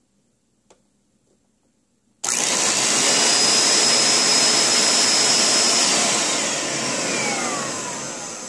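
Bissell SpotBot Pet spot cleaner switched on after a click: its motor starts abruptly about two seconds in with a loud, steady whoosh while the pump sprays water, then fades over the last few seconds with a falling pitch as it winds down. The spray shows the pump working again after being cleaned of gunk.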